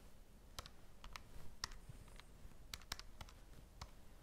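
Faint, irregular clicking of a handheld calculator's keys being pressed, about a dozen presses as a calculation is keyed in.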